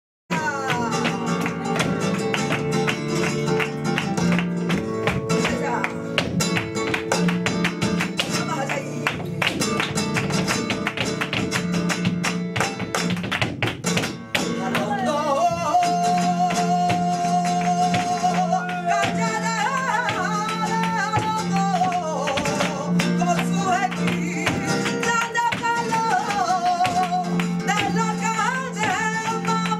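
Flamenco guitar playing a fandangos de Huelva accompaniment with dense strummed chords. About halfway through, a singer comes in with a long, wavering held note and then a bending, ornamented line over the guitar.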